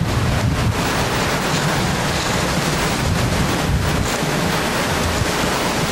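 Wind buffeting the camcorder's microphone: a steady rushing noise with a heavy low rumble.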